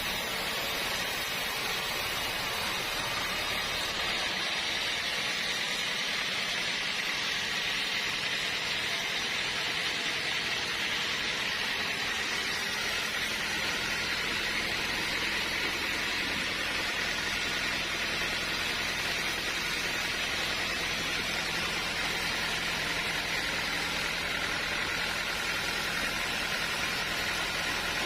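Sawmill machinery running: a steady, even hiss with a faint low hum underneath.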